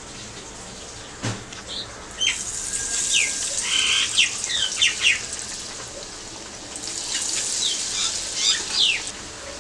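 Batter-dipped bread slices deep-frying in hot oil, the sizzle starting about two seconds in after a single knock. A bird chirps repeatedly over the frying, in short sharp falling notes.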